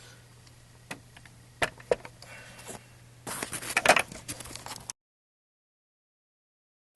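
Handling noises: a few scattered clicks and knocks, then a louder cluster of rustling and knocking about three and a half seconds in, over a low steady hum. About five seconds in, the sound cuts off to dead silence.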